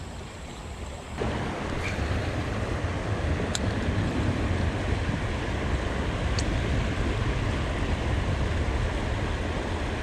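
Water pouring over a low-head river dam: a steady rushing noise with a heavy low rumble of wind on the microphone. It comes up suddenly about a second in, with a couple of faint ticks later.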